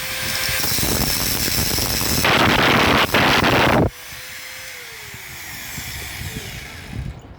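Workshop power tool running with a steady whine. About two seconds in comes a loud hissing rush lasting a second and a half, which cuts off sharply. The whine then slides down in pitch as the motor winds down, followed by a few light clicks.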